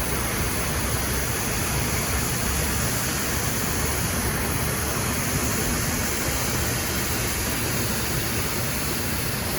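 Hot-water pressure washer spraying at low pressure, rinsing soap suds off a billboard: a steady spray hiss with a low rumble underneath.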